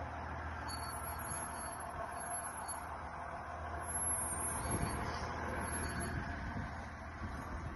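A military vehicle's engine running steadily at low speed, with a low hum beneath a steady noise, and a few dull thumps about halfway through.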